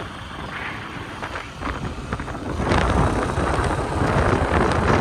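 Wind buffeting the microphone over the low rumble of a moving vehicle, growing louder about halfway through.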